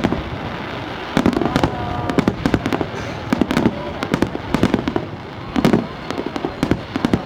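Aerial fireworks shells bursting in a rapid, irregular string of bangs with crackle, several close together in each cluster, with short lulls between.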